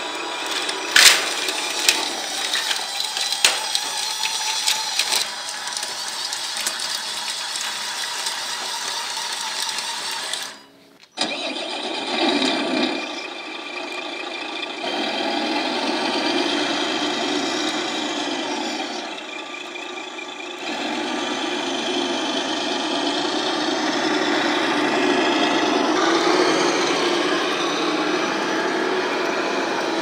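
Radio-controlled model machinery running. First comes a steady mechanical whir with a few sharp clicks and knocks in the first few seconds. After a brief drop-out about eleven seconds in, a steady engine-like drone from an RC Ford semi truck swells and dips.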